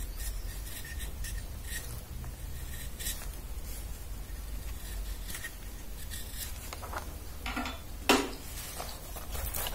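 A small hand carving blade paring and scraping Swiss stone pine in short, irregular strokes while roughing out a model's air intakes. One louder knock comes about eight seconds in.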